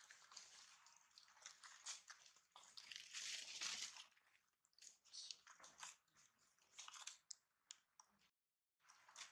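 A dry leaf crackling and crinkling in short bursts as a baby macaque grips it and bites at it. The crackling is loudest about three to four seconds in.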